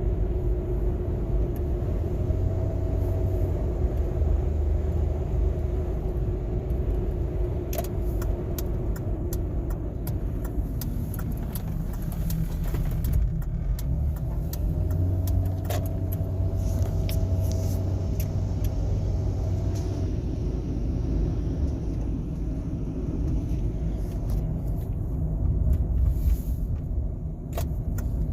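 Motor vehicle running with a steady low rumble, its pitch rising and falling now and then, with a few sharp clicks.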